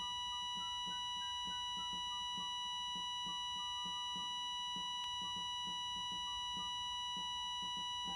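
Film score: a steady high electronic tone held without a break over quiet music of quickly repeating low notes, about three a second, and a faint stepping melody.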